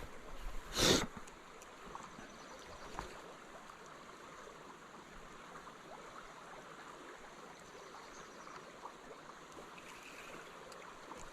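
Spring creek water flowing steadily, with a short, loud rustling knock about a second in.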